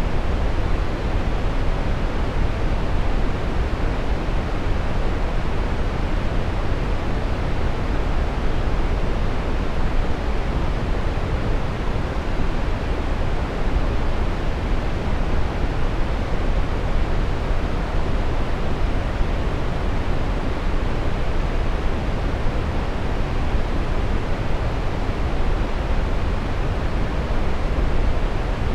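Steady brown noise: an even, deep rushing hiss, strongest in the bass and falling off toward the treble, unchanging throughout.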